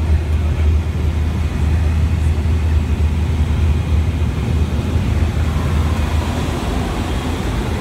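Small propeller aircraft's engine and propeller droning steadily in flight, heard from inside the passenger cabin as a deep, even drone.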